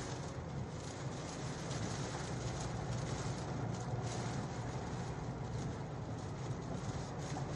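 Storm wind and rain making a steady, unbroken roar with a low rumble underneath, strong enough that motorcycles cannot ride in it.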